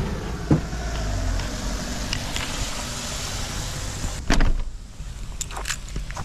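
Steady outdoor hiss with a low rumble that fades out in the first second or so. There is a sharp click about half a second in, a loud thump about four seconds in, and a few light knocks near the end, around a parked camper van.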